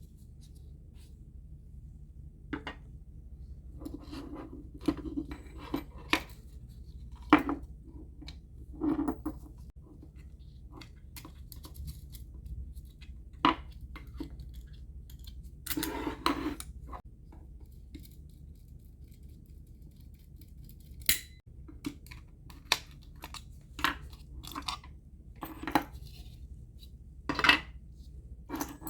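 Irregular clicks, short scrapes and light metallic clinks of small parts and tools being handled as a Crown Differoid condenser microphone is taken apart, over a steady low hum.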